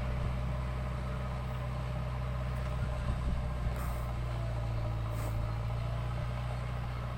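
A heavy machine's diesel engine running steadily at constant speed, with two short hisses about four and five seconds in.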